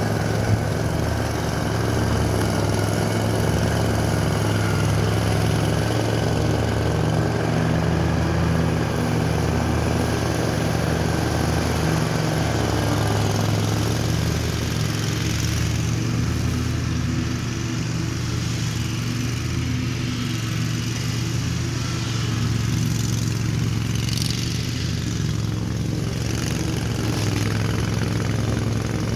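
Lawn mower engine running steadily nearby, a low even drone; about halfway through its higher sound fades somewhat while the low hum carries on. One short knock sounds just after the start.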